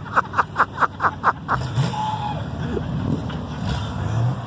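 1970 Dodge Coronet R/T at the tail of a burnout: a quick run of sharp chirps, about five a second, for the first second and a half, then the big-block V8 keeps running at low revs with a steady note.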